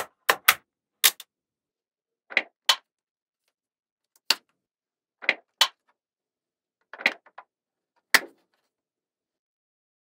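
Small magnetic balls clicking sharply as short bars of them are snapped onto a wall built of the same balls: a dozen or so separate clicks, often in quick pairs, stopping about eight seconds in.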